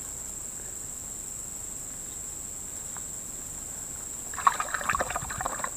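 Steady high-pitched drone of insects, and about four seconds in a short burst of splashing and rustling as a hand works a baited fishing line down a water-filled hole in a bank.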